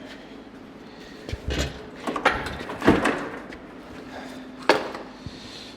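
Several hard metal clunks and knocks as the BMW E39's engine is hoisted and worked up out of the engine bay. The loudest comes about three seconds in and another sharp one near five seconds, over a steady low hum.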